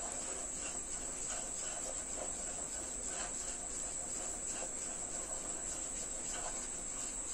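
Faint, soft scraping of a wooden spatula stirring gram flour into sugar syrup in a kadai as more flour is tipped in from a steel bowl, under a steady high-pitched whine.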